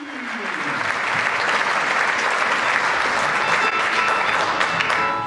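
Audience applauding, steady clapping that dies down near the end.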